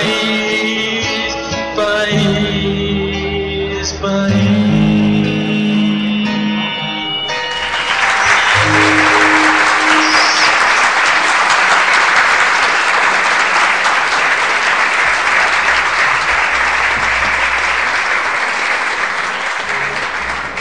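Guitar and voice play out the last chords of a live song. About seven seconds in, the audience starts a long round of applause.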